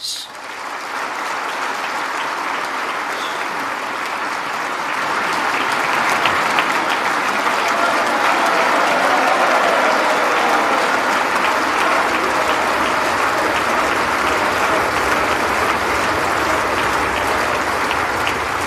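Large audience applauding: dense, sustained clapping that builds over the first five seconds or so, then holds steady.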